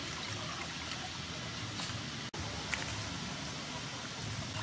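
Water splashing and trickling as hands wash raw shrimp in a steel basin, handfuls lifted out so the water pours back off them. The sound cuts out for an instant a little past halfway.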